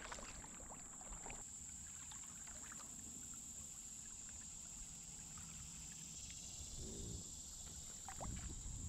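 Faint sounds of a kayak being paddled: soft paddle dips and drips on calm water, over a steady high-pitched hiss. The sounds grow livelier near the end as a fishing float is lifted out of the water.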